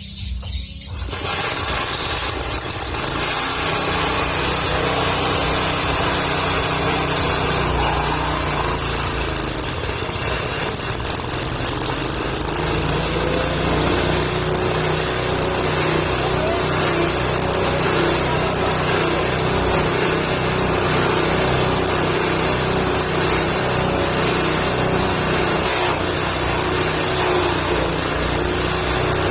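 Engine-driven forage chopper (chaff cutter for goat feed) running at speed. Its noise gets loud about a second in and then holds steady, with the engine's hum underneath.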